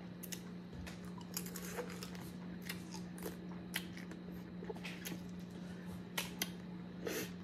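Close-up eating sounds of boiled crawfish: scattered small wet clicks and smacks as a crawfish is sucked and fingers are licked, over a steady low hum.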